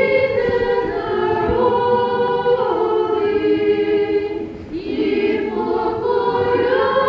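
A church choir singing unaccompanied Orthodox liturgical chant in long held chords, with a short break between phrases about four and a half seconds in.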